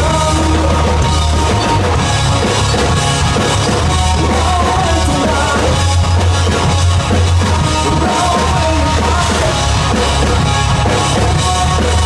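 Rock band playing live during a sound check: electric guitars, bass guitar and drum kit, with a singer on the microphone.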